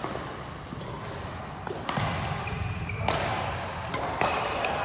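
Badminton rally in a reverberant hall: several sharp racket strikes on the shuttlecock, roughly one a second, with a few short high shoe squeaks on the wooden court floor.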